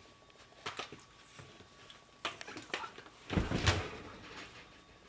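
Short scuffs and taps of a person handling a dropped pie on a tile floor, then a heavy thud about three and a half seconds in as he drops back against the kitchen cabinets and sits down on the floor.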